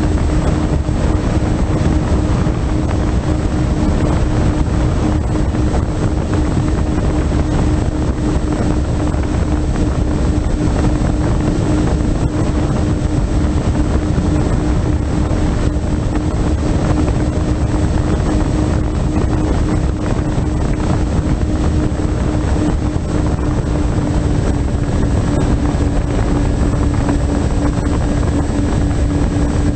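FPV model aircraft's motor and propeller running at steady cruise, heard through the onboard camera as a constant hum. Heavy wind rush sits over it. The pitch eases slightly lower near the end.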